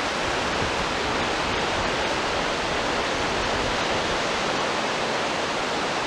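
Steady, even rush of sea surf on a sandy beach.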